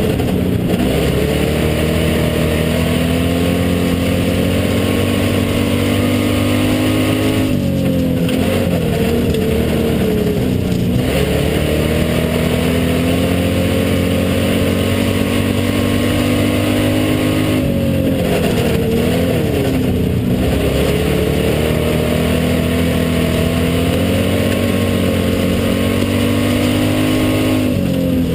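Hobby stock race car's engine at racing speed, heard from inside the cockpit. The engine note holds steady on the straights, then drops and climbs back up several times as the driver lifts off for the turns and gets back on the throttle.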